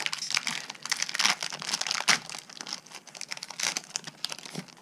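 Yu-Gi-Oh booster pack's foil wrapper crinkling and tearing as it is ripped open by hand. The crinkling thins out toward the end.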